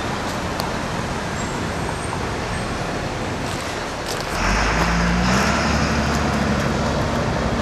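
Slow-moving work train of a wire car and a diesel locomotive approaching: a steady rumble, then about four seconds in the locomotive's diesel engine comes up louder with a low, steady drone.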